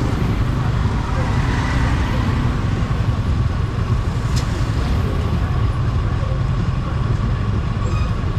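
Motorcycle engine running at low speed while crawling in dense city traffic: a steady low rumble, with the traffic around it.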